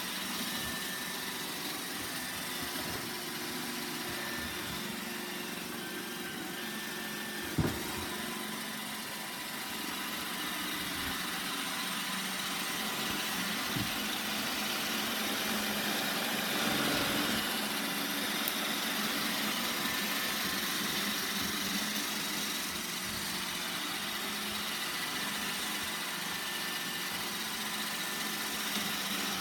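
iRobot Roomba 960 robot vacuum running, a steady motor whir with its brush hum, with one sharp knock about seven seconds in and a lighter one near the middle.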